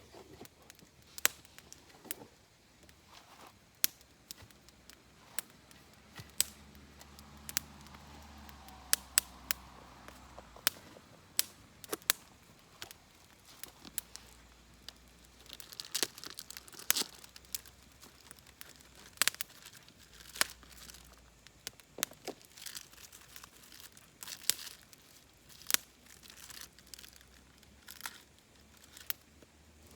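Wood fire crackling in a fire pit, with frequent sharp, irregular pops and snaps over a low hiss.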